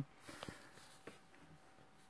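Near silence: quiet room tone with a few faint clicks.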